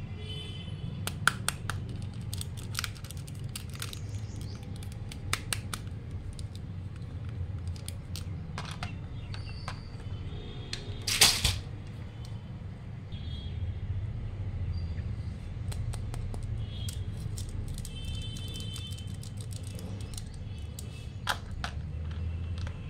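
Small plastic clicks and knocks as dolls and plastic toy bathtubs are handled, with one louder scraping knock about eleven seconds in, over a steady low hum.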